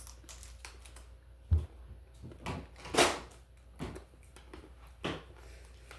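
A few scattered knocks and clicks from things being handled, with a low thump about a second and a half in and the sharpest click about three seconds in.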